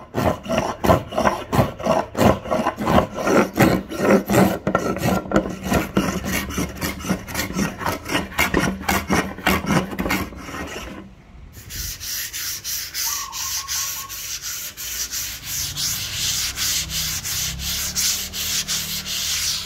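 Rosewood board being sanded by hand: quick back-and-forth strokes, about two to three a second, for roughly eleven seconds. After a brief pause comes a lighter, hissier rubbing in rapid strokes.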